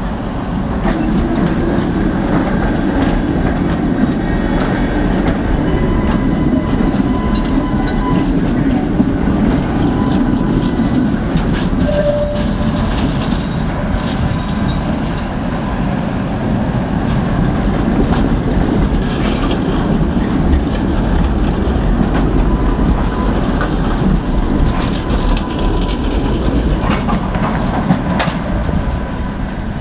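Tatra T5C5 trams running past close by on street track: a loud, steady rumble of wheels and traction motors, with clatter over the rail joints and a faint wheel squeal now and then.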